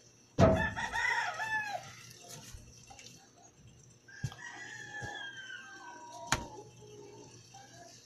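A rooster crowing: one loud crow about half a second in, then a fainter, longer crow from about four seconds in. A few sharp clicks, the loudest near the end of the second crow.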